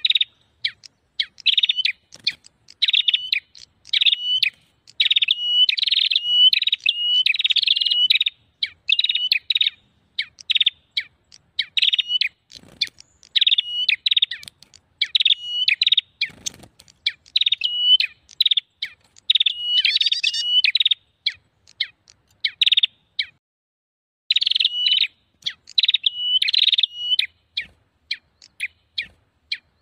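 Lure recording of prenjak (small Indonesian warblers) calling busily: quick runs of sharp, high chirping phrases repeated over and over with short gaps, with a longer break about three-quarters of the way through. This kind of excited, noisy prenjak calling is played to draw wild prenjak in.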